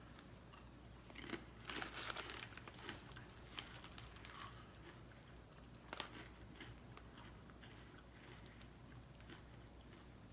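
A person biting and chewing crunchy chips: a run of sharp crunches in the first six seconds, then fainter chewing.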